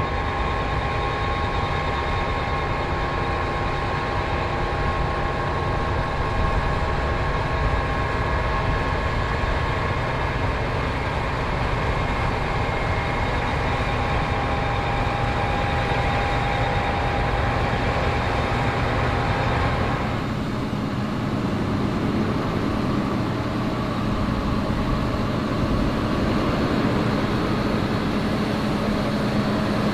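New Holland combine harvester running steadily while harvesting barley: a low machine rumble with several steady whining tones over it. About two-thirds through, the sound changes: the higher whines drop away and a lower steady hum takes over.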